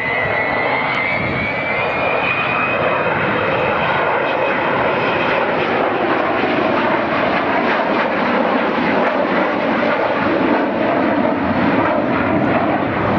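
Avro Vulcan XH558 delta-wing bomber flying past low, its four Rolls-Royce Olympus turbojets giving a loud, steady jet roar. A high whine rises in pitch over the first few seconds.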